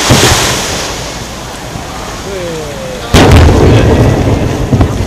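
Fireworks shells bursting over water. A burst at the start comes with a crackling hiss, and about three seconds in a sharp, loud bang is followed by low rumbling.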